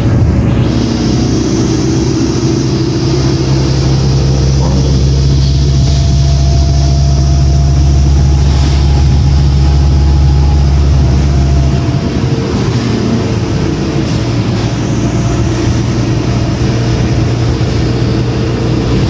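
Cummins ISL straight-six diesel engine of a 2006 New Flyer D40LF city bus running with a steady low drone; the deepest part of the drone drops away about twelve seconds in, and the engine carries on more lightly.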